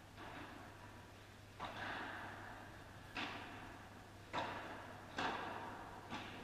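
Padel ball being hit back and forth: five sharp knocks of paddle on ball and ball bouncing, spaced about a second apart and echoing around the enclosed court, over a steady low hum.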